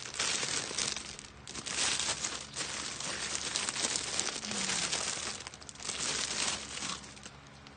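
Packaging crinkling and rustling in several bursts as it is handled and opened, dying down near the end.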